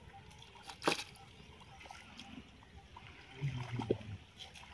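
Quiet water sounds from a shallow pond as a cast net is drawn in: one sharp splash about a second in, then faint trickling and dripping. A brief low voice sounds near the end.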